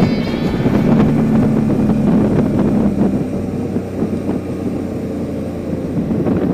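Motorcycle engine running while riding, heard from the bike with wind rushing over the microphone. The engine note is clear for the first two or three seconds, then sinks under the wind and road noise.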